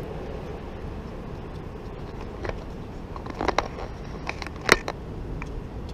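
Steady low outdoor street background noise with a few sharp clicks, the loudest a little under five seconds in.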